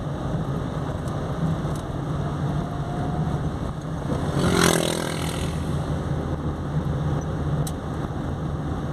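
Steady engine and tyre noise heard from inside a moving car. About four and a half seconds in, a motorcycle passes the other way, swelling briefly and dropping in pitch as it goes by.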